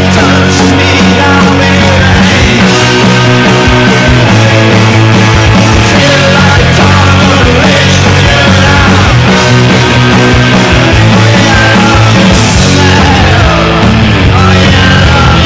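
Loud, steady garage punk rock from a full band: electric guitar and bass guitar over drums with cymbal crashes.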